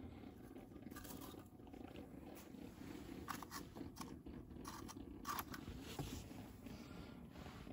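Faint scattered crunches and rustles of snow and slushy ice around the ice-fishing holes as the small winter rods are handled, over a low steady background noise.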